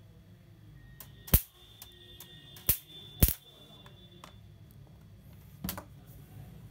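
Electric mosquito bat discharging: three sharp spark snaps in the first three and a half seconds as a screwdriver tip touches the charged mesh, over a faint high whine from its voltage booster. The snaps show the grid is live on the new battery. A lighter knock follows near the end.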